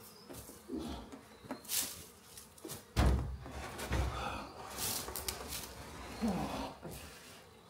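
Wooden beehive boxes knocking and thudding as a stack is carried and set down on a trailer, with the loudest thump about three seconds in and several lighter knocks and clicks around it.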